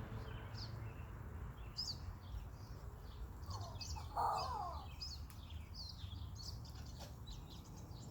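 Songbirds chirping, a scatter of short high chirps throughout, with one louder, lower call about four seconds in, over a steady low background rumble.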